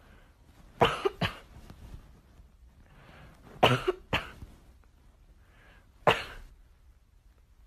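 Repeated coughing: five sharp coughs, two quick pairs and then a single one.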